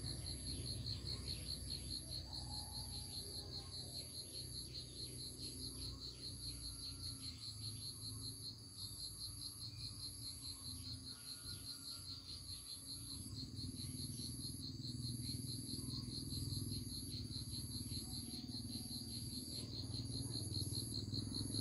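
Insects chirping in a steady chorus, typical of crickets: a fast, even trill with a higher buzz above it that breaks off and resumes about once a second.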